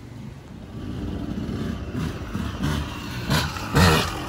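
Motorcycle engine revving up and down under changing throttle, with two short, loud surges of throttle in quick succession near the end.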